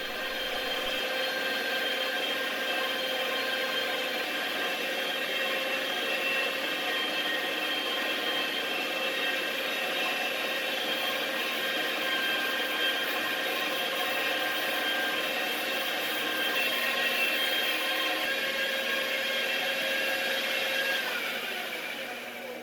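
Mag drill's electric motor running steadily with a whine, spinning a half-inch brass bar while it is polished with emery cloth. Near the end it is switched off and the whine falls as it spins down.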